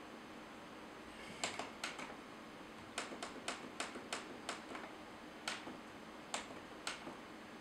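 Monitor front-panel buttons clicking as the on-screen menu is stepped through to lower the green gain: a dozen or so sharp single clicks, with a quick run of about three a second in the middle.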